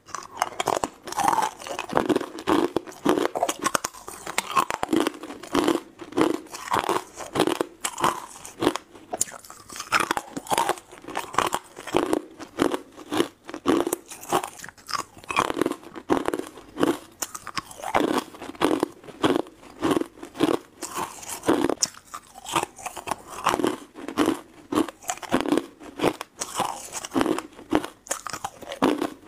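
Ice cubes being bitten and crunched close to a clip-on microphone: a dense run of crisp crunches, several a second, with brief pauses between bites.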